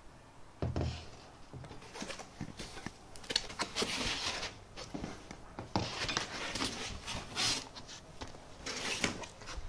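Unpacking noises: a low thump near the start, then irregular scraping and rustling of foam packing sheets against a cardboard box, with short knocks as a long aluminium rod is laid down on the boxes.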